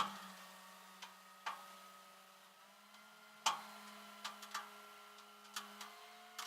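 Irregular sharp clicks and light knocks, about nine of them, the loudest at the very start and about three and a half seconds in, over a steady low hum.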